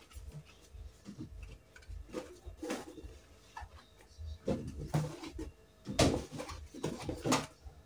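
Rustling of a cloth tote bag and thin plastic bags as tomatoes are lifted out and handled, in irregular bursts with the loudest rustle about six seconds in.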